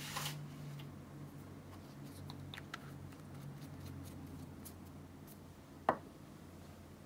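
Quiet room tone with a steady low hum and a few light clicks and taps, with one sharper click about six seconds in.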